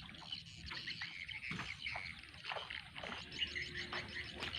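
Birds chirping and twittering, many short calls and a few falling whistles, over faint outdoor background noise.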